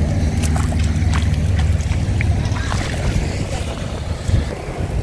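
Wind buffeting the microphone, a steady low rumble, with small scattered splashes of bare feet wading through shallow water.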